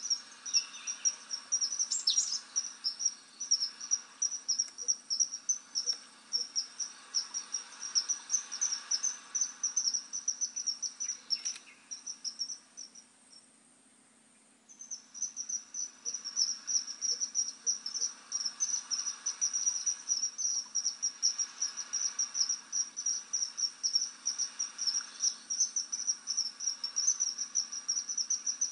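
Insect chirring in fast, even, high-pitched pulses, pausing for about a second and a half around the middle before starting again, with one short rising chirp about two seconds in.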